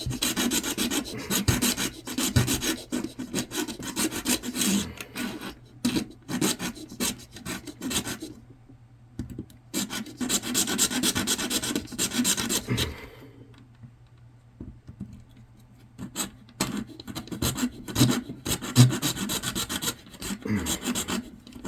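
Hacksaw cutting through the hard plastic housing around a Raymarine e7 chartplotter's SD card reader in fast back-and-forth strokes. The sawing breaks off briefly about eight seconds in, pauses again for about three seconds just past the middle, then resumes in shorter runs.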